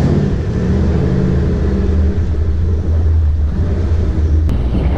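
Ford Mustang GT500's supercharged V8 engine running as the car cruises slowly, a steady low rumble.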